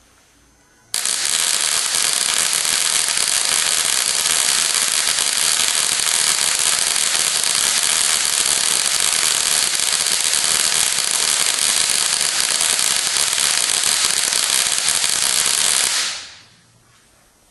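Ruhmkorff induction coil firing a continuous spark across its spark gap: a loud, dense crackling buzz that starts suddenly about a second in, holds steady, and cuts off about a second before the end.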